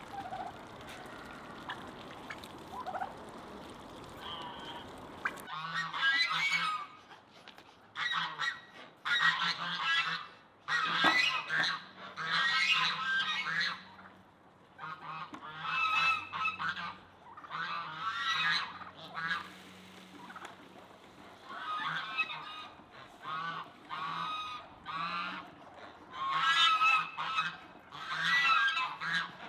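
A flock of domestic geese honking, loud repeated calls coming in clusters from about five seconds in, after a quieter stretch.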